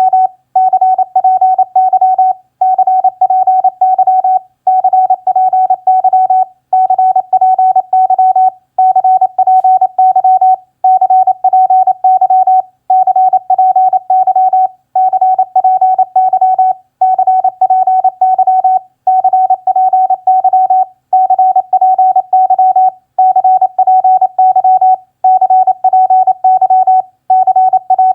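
Morse code sent as a single keyed tone at 28 words per minute: quick dots and dashes in short groups separated by brief pauses about every two seconds, spelling common QSO phrases such as HW CPY and GUD CPY.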